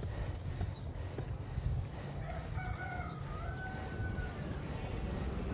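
A rooster crows once, a drawn-out call of about two seconds that starts a little over two seconds in, over a steady low rumble.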